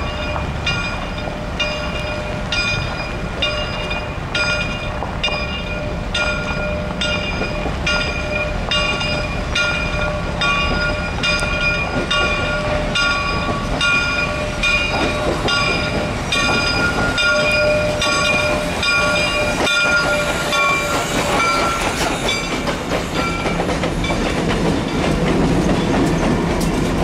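Reading & Northern 425 steam locomotive's bell ringing steadily, struck about one and a half times a second, as the locomotive rolls slowly in. About twenty seconds in there is a hiss of steam, and near the end the bell fades under the growing rumble of the engine and train passing close by.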